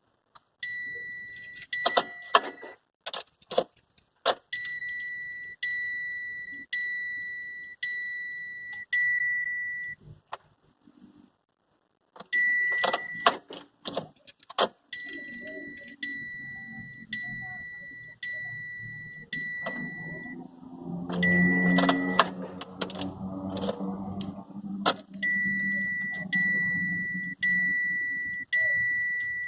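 Chevrolet Captiva's dashboard warning chime dinging over and over, about one ding a second, stopping and starting again three times. Sharp clicks from the key and switches come in clusters. A low hum swells and fades around twenty seconds in.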